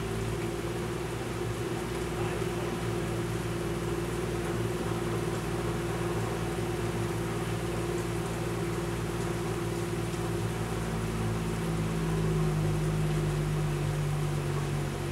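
Heavy torrential rain pouring steadily, under a steady mechanical hum; a deeper hum joins about three-quarters of the way through and the whole grows slightly louder.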